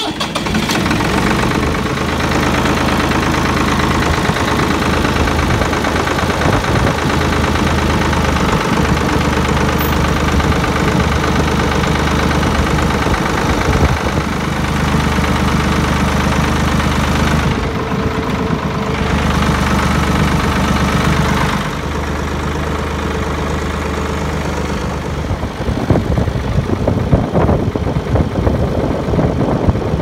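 Farm tractor engine running, loud and steady, just after being started, as the tractor moves off. Its sound drops to a lower level about 22 seconds in and turns rougher and uneven in the last few seconds.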